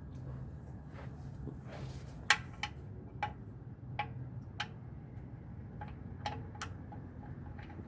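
Irregular sharp clicks and light taps, the loudest about two seconds in, as the loosened oil filter element housing of a 2013 Toyota Sienna is turned out by hand.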